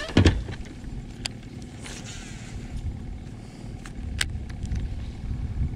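Bow-mounted electric trolling motor running with a low, steady hum, and two sharp clicks about a second and four seconds in.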